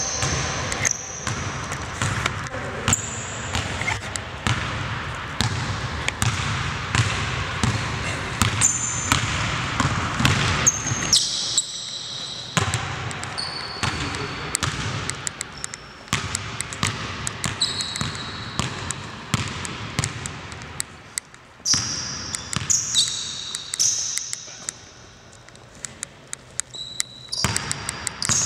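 A basketball bouncing on an indoor gym court during a pickup game, a scatter of sharp bounces, mixed with short high-pitched sneaker squeaks on the floor.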